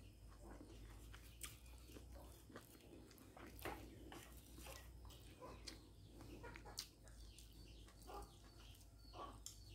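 Near silence, with faint scattered clicks and soft chewing sounds from eating crisp-fried fish with wooden chopsticks.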